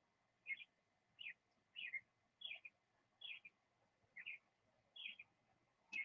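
Faint bird chirping: short high chirps repeated steadily, about one every three-quarters of a second.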